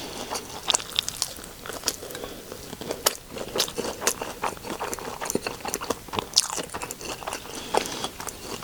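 A person biting and chewing food, with many short, sharp crunching and wet mouth clicks.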